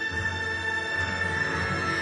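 Recorded music for an ice dance rhythm dance, with several held notes sounding together at an even level.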